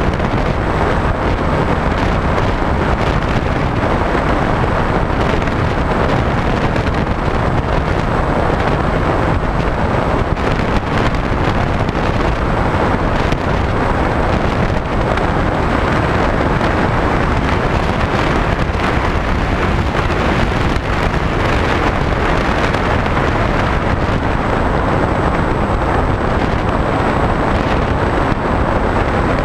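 Loud, steady wind rush buffeting the microphone of a camera riding on a HobbyKing SkyEye FPV plane in flight, mixed with the plane's electric motor and propeller.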